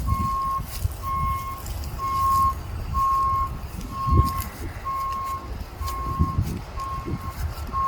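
An electronic alarm beeps a single steady tone about once a second, over a louder uneven low rumble with occasional knocks.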